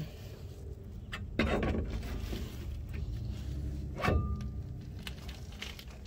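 1998 Chevy Silverado 1500's front hub and brake rotor being worked by hand onto the spindle: a low handling rumble with a few knocks, and a sharper metallic clink with brief ringing about four seconds in.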